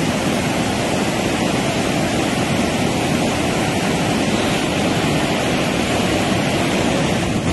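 Water pouring through a DVC dam's open spillway gates during a flood release: a loud, steady rush of falling water, deepest in the low range.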